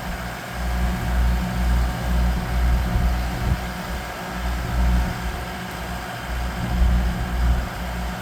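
An engine idling steadily, with a low rumble that swells and dips every half second or so.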